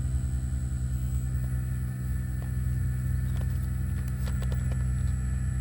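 Sumitomo SH120A3 excavator's diesel engine running at a steady speed, with a few light clicks about four seconds in.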